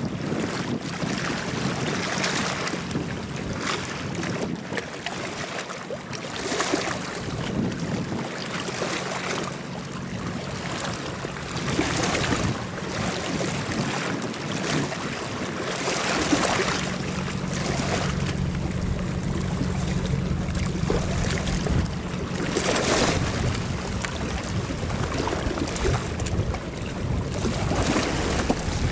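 Engines of the Wavemaster 9 fast ferry running with a steady low drone, louder from about halfway through as the boat comes closer. Gusts of wind on the microphone and the wash of water sound over it.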